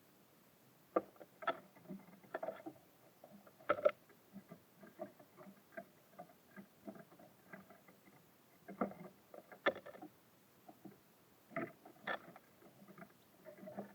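Small birds pecking and hopping at a bird feeder: irregular taps and knocks, with a few louder knocks in clusters and many light ticks between.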